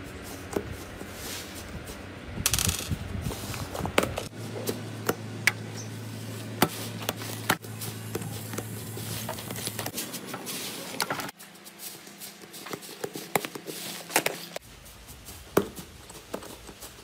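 Slime in a plastic tub being pressed and squeezed by fingers, giving a run of sharp crackles and pops from air pockets and the slime's surface. The sound changes abruptly about 4, 11 and 15 seconds in as different slimes follow one another, the last one pink iceberg slime.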